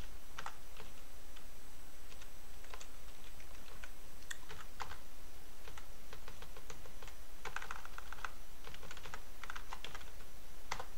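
Typing on a computer keyboard: irregular runs of keystrokes, with a dense flurry a little past halfway and another near the end, over a steady low hum.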